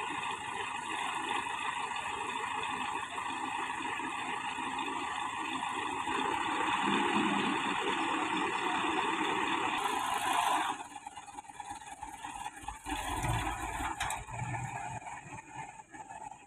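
Mitsubishi Canter dump truck's diesel engine running steadily. About eleven seconds in the sound drops abruptly to a quieter, uneven low rumble.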